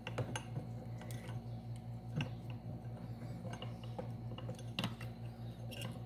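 Small irregular clicks and ticks of wire leads and a small motor capacitor being handled, with a spliced wire twisted together by hand, over a steady low hum.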